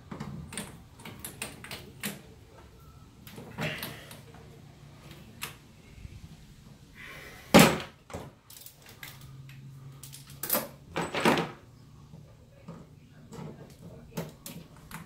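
Metal parts and hand tools clattering in a car's engine bay as parts are worked loose: a scattered run of clicks and knocks, the loudest knock about seven and a half seconds in and another cluster a few seconds later.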